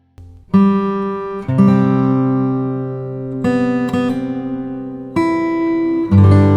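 Background music: acoustic guitar strumming chords, a new chord struck every second or two and left to ring.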